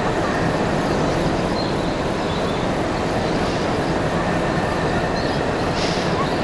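A steady, loud rumbling noise with no clear pitch, unbroken throughout.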